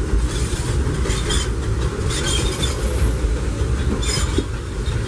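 A Disneyland Railroad train hauled by steam locomotive Ernest S. Marsh #4, heard from aboard a passenger car. Its wheels on the track make a steady low rumble, with light clicks and clatter about once a second.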